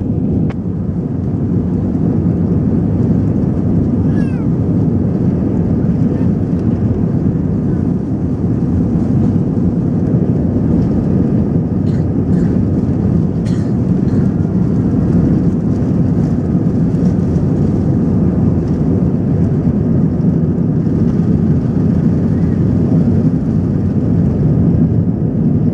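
Airbus A320 cabin noise during the takeoff roll: a loud, steady, deep rumble of the engines at takeoff power and the aircraft rolling down the runway.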